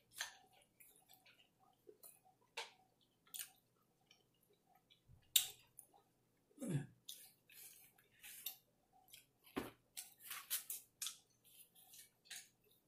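Close-miked mouth sounds of eating barbecue ribs: irregular wet chewing clicks and lip smacks, with a short hum falling in pitch about seven seconds in and a dull thump near ten seconds.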